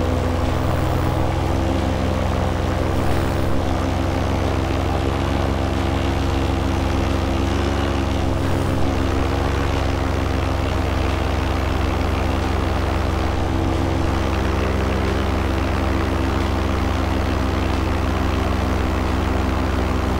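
Paramotor's engine running at steady cruise power, driving its repaired carbon-fiber propeller, with an even drone that holds one pitch.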